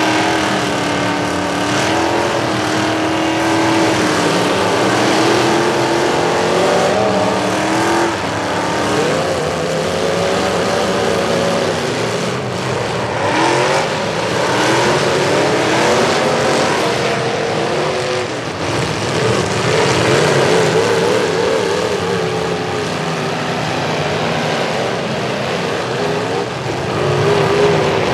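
Several demolition derby pickup trucks' engines revving hard as they push and ram against each other, the pitch rising and falling again and again.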